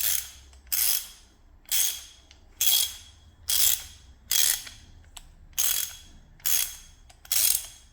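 Socket ratchet wrench with an extension and socket fitted, swung back and forth so the pawl clicks over in short, even bursts about once a second, nine times in all.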